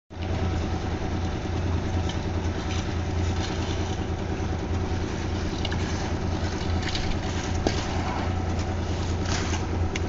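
Concrete mixer's engine running steadily with a low hum. Over it come a few short scrapes and clinks of shovels working wet concrete into metal pans.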